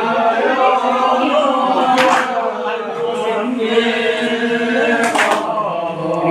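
A group of men chanting together in unison, a devotional chant held on long notes. Two brief sharp strikes cut through, about three seconds apart.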